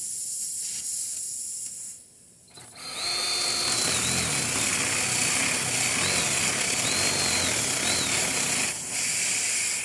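Electric drill running for about six seconds, starting about three seconds in, its whine wavering in pitch as it works the nail hole in the tire to open it for a plug. Before it, a steady hiss for the first two seconds.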